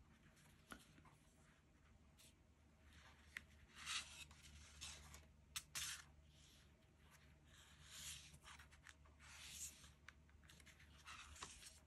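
Faint rustling and light taps of cardstock greeting cards being handled, slid and set down on a tabletop, as a few scattered brushing sounds and small clicks in near silence.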